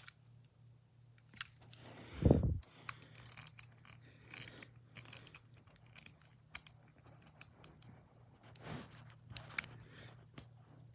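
Irregular small clicks and rattles of an antique pocket watch being handled, with one loud low thump about two seconds in, over a faint steady hum.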